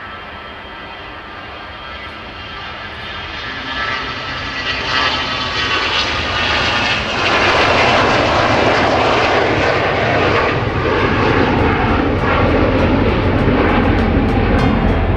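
Bombardier BD700 Global Express business jet's engines during a takeoff, the jet noise building over several seconds and then holding loud and steady.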